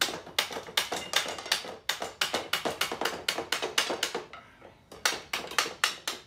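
Small mallet tapping rapidly on the wooden back of an unglued Windsor rocker, about five light knocks a second, to drive the dry-fitted top bar loose from the spindles and stiles. The tapping pauses briefly a little after four seconds in, then resumes.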